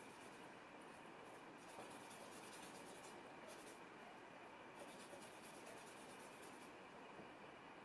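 Faint scratching of a flat hog-bristle brush working oil paint on the palette, in two spells of short rubbing strokes over a steady room hiss.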